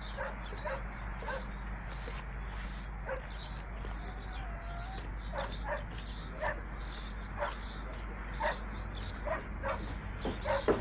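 A dog barking repeatedly in short yaps, over a steady low hum.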